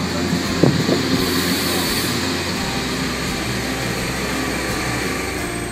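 SNCF electric multiple unit running past a station platform, a steady rush of wheels on rail and train noise, with a short squeal that slides down in pitch about half a second in.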